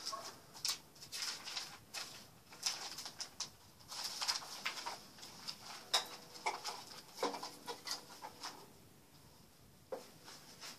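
Irregular faint clicks, taps and rustles of an acoustic guitar being handled between playing, with no music.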